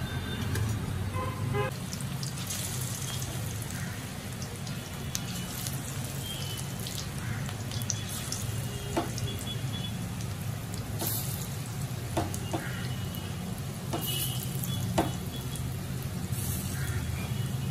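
Onion and gram-flour (besan) pakoras deep-frying in hot oil in a steel kadhai: steady sizzling and bubbling, with scattered sharp clicks and pops as fresh batter goes into the oil. A steady low hum runs underneath.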